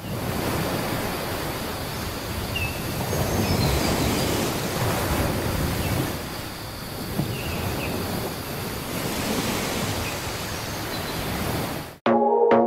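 Steady outdoor rush of wind and ocean surf, swelling and easing, with a few faint short high chirps. It cuts off abruptly near the end and synthesizer music begins with a struck note.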